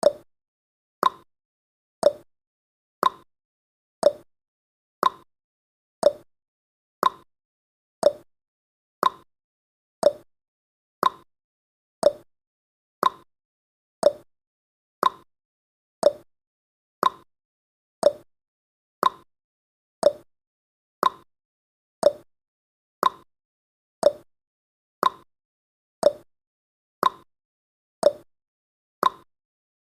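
Countdown timer's ticking sound effect: a short, sharp tick once every second, evenly spaced.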